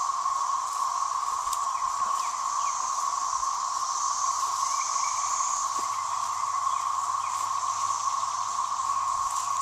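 A loud chorus of many cicadas: an unbroken drone, with a higher shrill layer that swells and fades twice.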